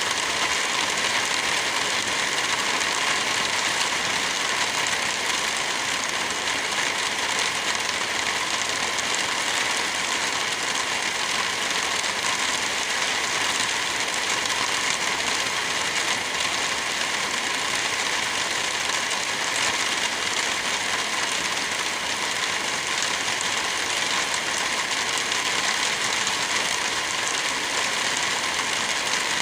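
Wind blowing through forest trees with light rain falling: a steady, even hiss.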